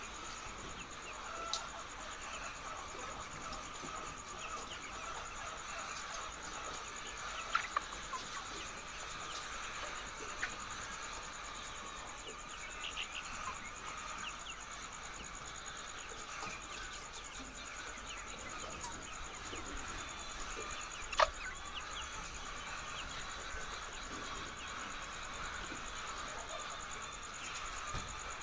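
A flock of laying hens clucking steadily, with a few short, sharper sounds about eight seconds in and again, loudest, about 21 seconds in.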